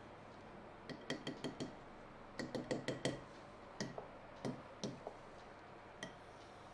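A pen tapping on the glass screen of an interactive display board: a series of light, sharp clicks, some singly and some in quick runs, as dots are marked along the drawing and tools are picked from the on-screen palette.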